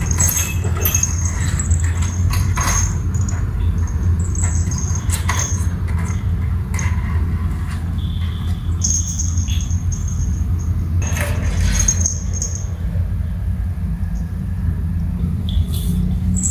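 Small bells on kittens' collars jingling now and then in short high rings as the kittens play, with a few light taps, over a steady low hum.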